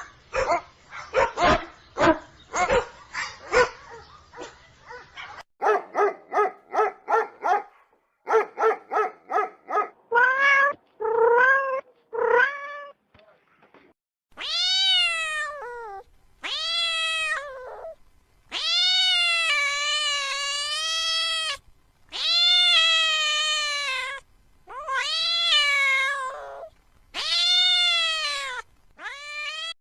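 A rapid run of short yaps, several a second, for the first dozen seconds. From about halfway on, a cat gives a series of long drawn-out meows, each rising and then falling in pitch.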